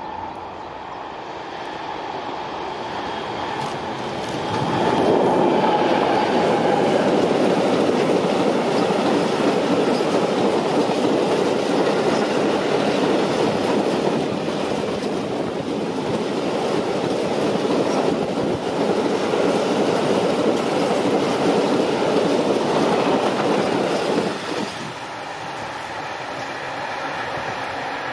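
Train of empty flat freight wagons rolling past close by on the rails. The noise swells about four seconds in, holds steady, and drops off sharply a few seconds before the end as the last wagons go by.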